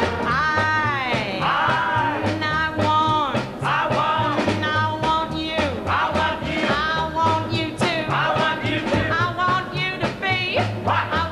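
Upbeat rock and roll dance music with a singer over a bass line that steps steadily from note to note.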